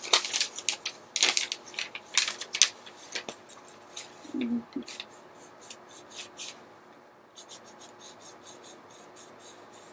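Quick scratchy strokes on paper close to the microphone, like drawing or colouring in a journal, coming in a rapid series that is louder in the first few seconds and fainter later.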